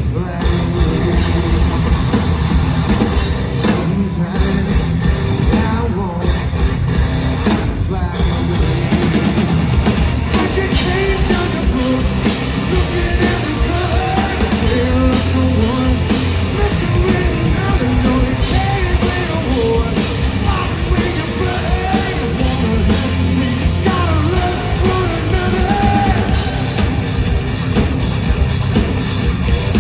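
Live hard rock band playing loudly, with short stops in the music about four, six and eight seconds in.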